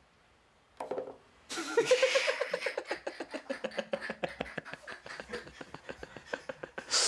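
A short soft tap about a second in, then a long run of a man's laughter in rapid pulses that slowly trails off.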